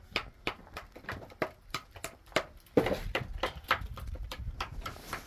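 Mason's trowel knocking on concrete blocks as they are set in mortar: sharp, regular taps about three a second, with a heavier knock nearly three seconds in.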